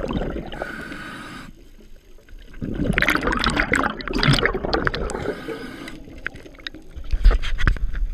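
Scuba diver breathing through a regulator underwater. A hissing inhale is followed by a loud burst of bubbling exhaust, then a second hissing inhale, with more bubbling near the end.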